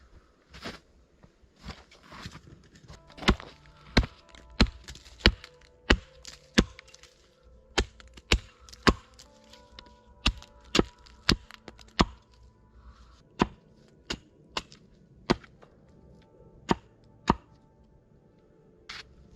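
Wood being chopped with an axe: sharp strikes about one and a half a second, in short runs of two to five with brief pauses between.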